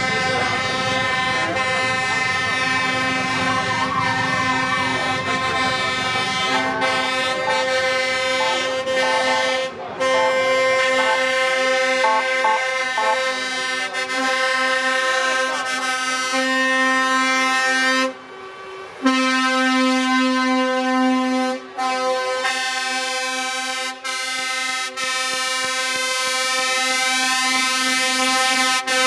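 Truck air horns sounding almost without pause, several held horns overlapping as the lorries pass, broken by a few short gaps, over a low engine rumble in the first seconds.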